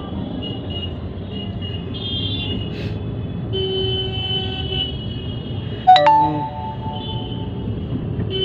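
Road traffic heard from inside a car in slow city traffic: a steady low engine and traffic hum. About six seconds in comes one short, loud vehicle horn toot, the loudest sound here.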